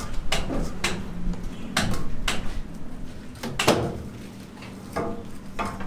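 A series of irregular knocks and bangs, about nine sharp impacts spaced unevenly, some with a short ring.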